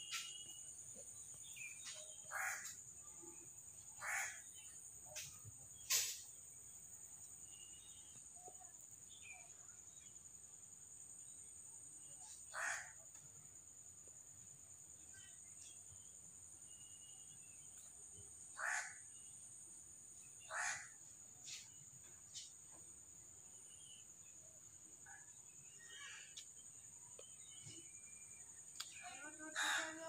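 Crows cawing: single harsh caws a few seconds apart, about half a dozen in all, over a steady high-pitched drone.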